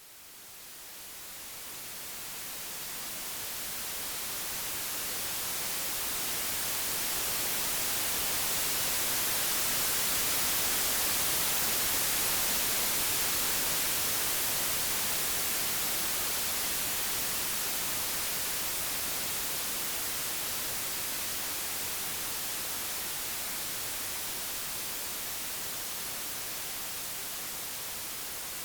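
Computer-generated white noise: an even, full-range hiss that fades in from silence, swells to its loudest about eleven seconds in, then eases off slightly.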